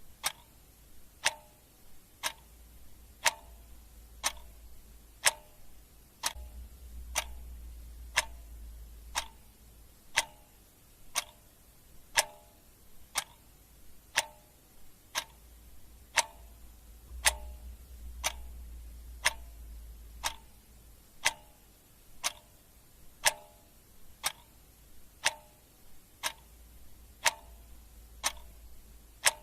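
Clock ticking steadily at about one tick a second. Each tick is a sharp click with a brief ring.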